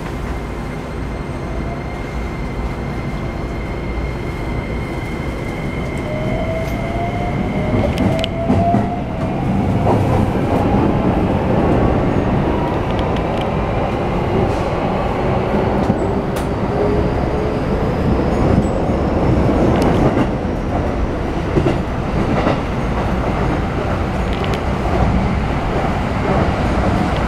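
Keikyu New 1000 series traction equipment, a Toyo IGBT + SiC hybrid VVVF inverter, whining as the train accelerates, its tones gliding upward in pitch over the rumble of motors and wheels. A few wheel clacks over rail joints can be heard.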